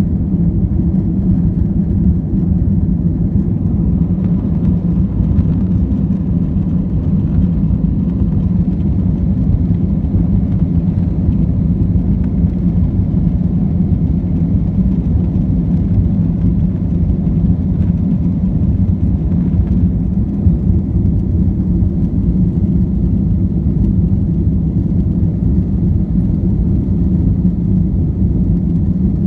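Steady, deep rumble of a passenger airliner's engines and airflow, holding an even level with no rise or fall.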